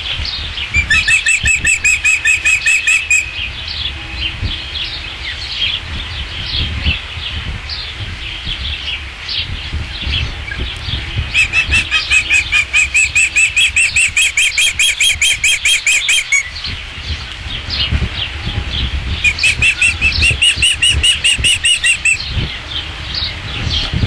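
Ospreys calling: three bouts of rapid, high whistled notes, about six a second. The first comes about a second in, a long one of about five seconds falls in the middle, and a shorter one follows a few seconds later, with softer chirps between them over a low wind rumble.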